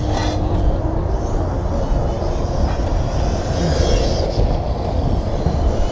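Electric RC touring car with a 17.5-turn brushless motor whining as it laps the track, the high whine rising and falling with throttle, loudest about halfway through. A steady heavy low rumble lies under it throughout and is the loudest part.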